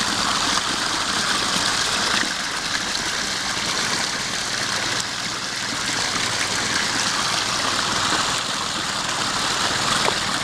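Water running steadily down a newly built rock stream and waterfalls into a pond, driven by a submersible pond pump, with a faint low steady hum underneath.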